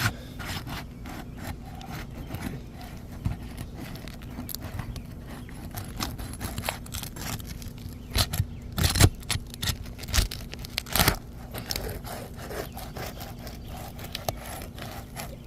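A tool scraping and prying under an asphalt roof shingle to break its sealant strip, with a few sharp cracks past the middle. The shingle is brittle and the tool pushes through it instead of lifting it cleanly.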